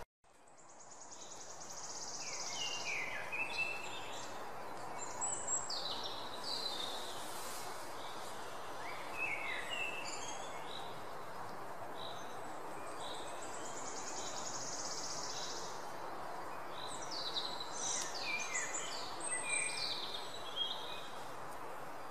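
Nature ambience: birds chirping and singing in short phrases over a steady hiss, fading in from silence over the first couple of seconds, with an occasional long, buzzy, high trill.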